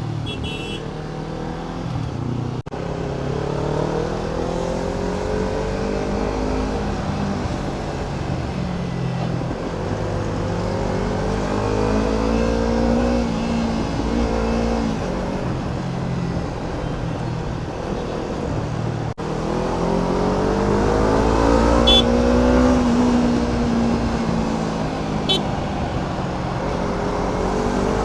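Kawasaki Ninja 300's parallel-twin engine running under way, its note rising and falling several times as the bike speeds up and slows.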